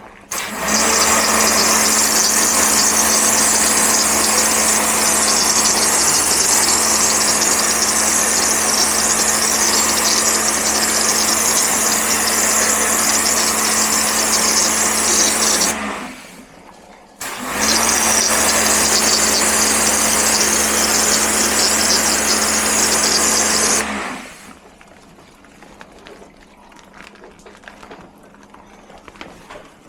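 Electric high-pressure washer running for an air-conditioner wash, with a loud, steady hiss of spray over a low hum. It stops about sixteen seconds in, starts again a second or so later, and stops for good about twenty-four seconds in.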